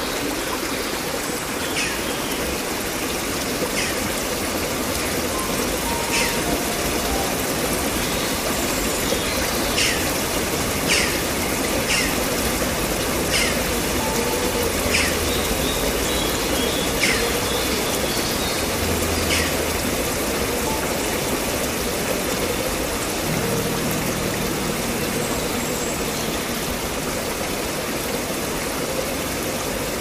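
Steady rush of flowing water, like a stream, with a scattering of short high chirps through the middle.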